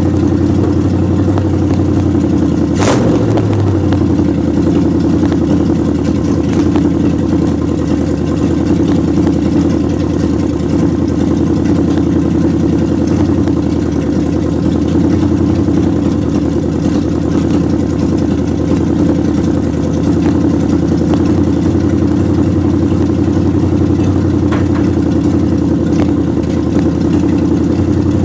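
The 1929 Chrysler's engine idling steadily as it warms up, with one sharp click about three seconds in.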